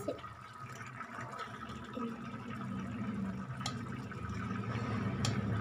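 Pan of potato curry simmering with a soft bubbling over a steady low hum, with two small sharp clicks in the second half.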